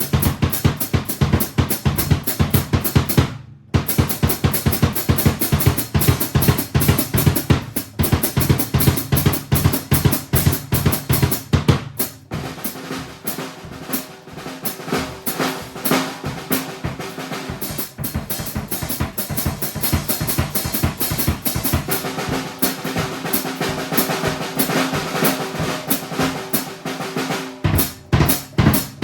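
Drum kit played as a fast, dense solo improvisation. The playing stops for an instant about three seconds in. From about twelve seconds in, the bass drum drops out and the playing stays on the higher drums until it returns near the end.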